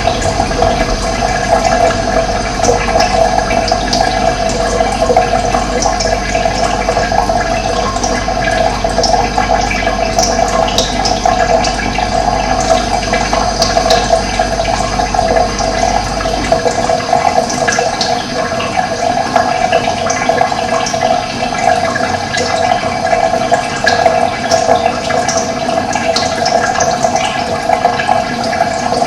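Steady running water, a continuous rushing sound, with a low hum underneath that cuts out a little past halfway.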